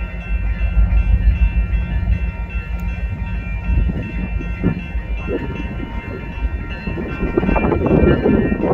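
Freight train passing close by: a deep locomotive rumble with a steady whine, then wheel and car rattle growing louder near the end.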